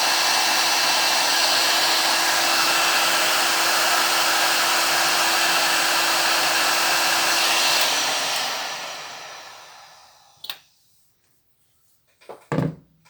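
Parkside PHLG 2000 D3 hot air gun blowing steadily with a motor hum, then switched off about eight seconds in, its fan winding down over a couple of seconds. A light knock and then a louder thump follow near the end.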